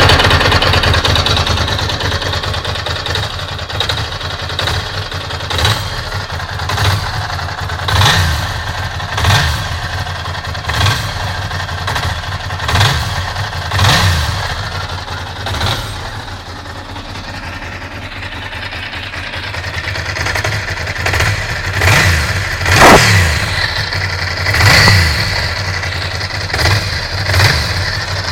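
Ducati Monster's V-twin engine idling, with the throttle blipped over and over so it revs up briefly and drops back to idle each time; a quieter spell of plain idle about halfway through.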